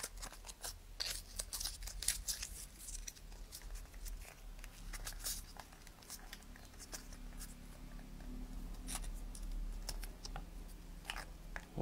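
Faint paper rustling and crinkling with scattered light clicks: a paper wing being threaded through two slits in a small rolled-paper firework tube.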